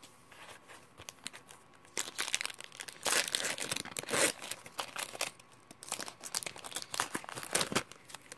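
Foil wrapper of a Pokémon trading card booster pack being torn open and crinkled in the hands: a run of crackling rips and rustles starting about two seconds in, loudest around three to four seconds in.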